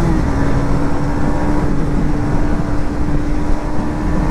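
KTM Duke 250 single-cylinder engine running at a steady cruising pitch, dipping slightly just after the start and then holding even, with heavy wind noise on the microphone.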